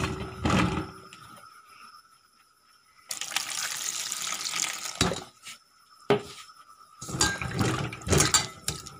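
Vegetable pieces knocking in a steel bowl, then water poured from a jug onto cut bottle gourd and potatoes in the bowl, a steady splashing pour lasting about two seconds. Two short knocks follow, then hands slosh and rub the pieces in the water near the end.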